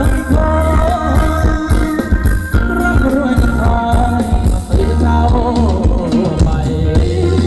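Thai luk thung band music for ramwong dancing, with a wavering sung melody over a heavy bass and drum beat.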